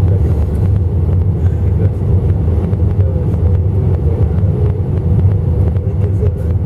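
Airbus A319 cabin noise from a window seat over the wing during approach: a steady low rumble of the engines and airflow, with a thin steady tone running through it.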